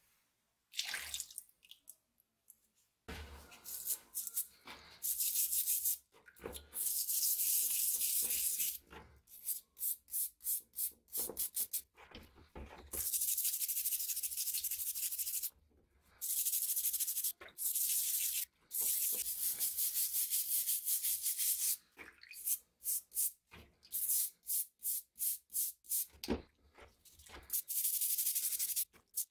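Stiff brush scrubbing rust off a wet iron hammer head in repeated back-and-forth strokes, some quick, some held longer, with short pauses. The scrubbing begins about three seconds in.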